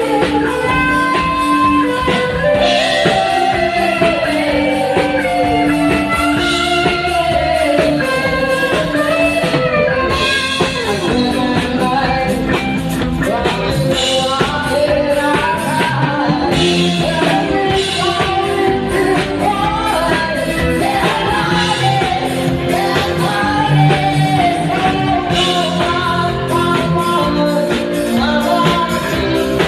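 A rock-style song plays: a voice singing over guitar and drums with a steady beat.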